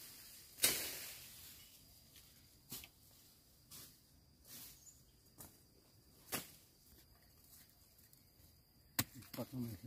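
Faint, scattered sharp snaps and crackles, like dry bamboo litter and twigs being stepped on or broken, at irregular gaps of about a second; the sharpest comes just under a second in. A voice starts faintly near the end.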